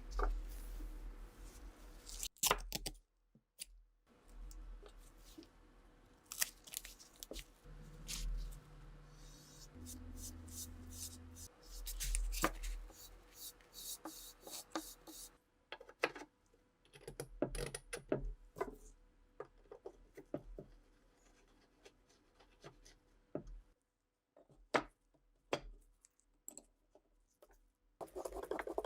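Hand work on metal and wooden rifle parts: irregular clicks, taps and brief scraping, with a few abrupt cuts to silence.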